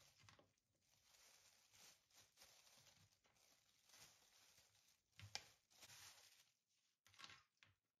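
Faint scooping and rustling: a metal spoon scraping boiled chickpeas out of a plastic colander and a plastic bag crinkling as they are dropped in, with a sharper click about five seconds in.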